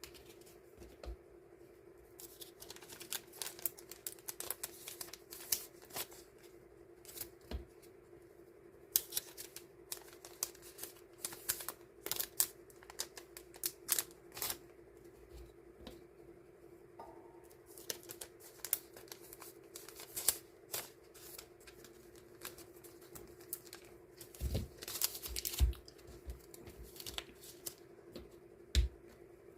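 Paper and plastic handling as die-cut stickers are sorted and portioned: irregular crinkling, light snips and tapping clicks, with a few heavier knocks on the tabletop late on. A steady faint hum runs underneath.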